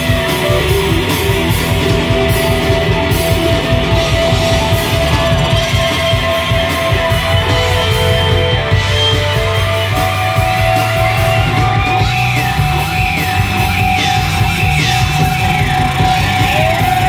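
Rock band playing live with loud electric guitars in an instrumental passage: held notes, with guitar notes sliding and bending in the last few seconds.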